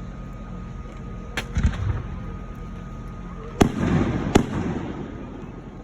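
Fireworks going off: a sharp bang about one and a half seconds in, followed by a deeper thud, then two sharp bangs close together past the middle with crackling between them.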